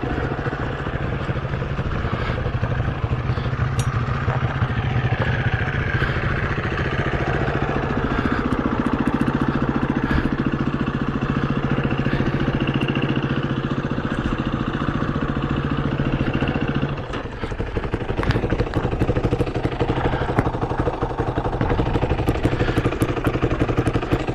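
KTM 350 EXC-F single-cylinder four-stroke dirt bike engine idling at standstill, with a steady low note. About seventeen seconds in the steady note drops out and an uneven, choppier idle carries on.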